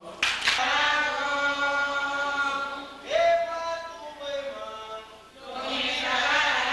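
Voices singing a chanted Garifuna song: a man leads into a microphone, with held notes that glide up into each line and other voices joining. Two sharp strikes sound near the start, and the singing breaks briefly about five seconds in before coming back.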